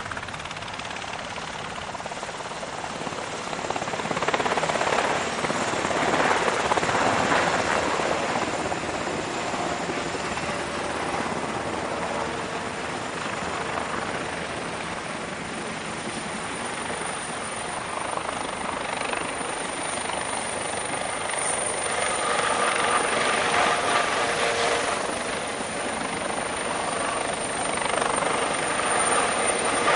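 Several military helicopters flying low overhead in formation: a continuous rotor and turbine noise from AH-64D Apaches and then OH-6D and UH-1J formations, swelling about four seconds in and again past the twenty-second mark as groups pass close, with a steady turbine whine heard in the later part.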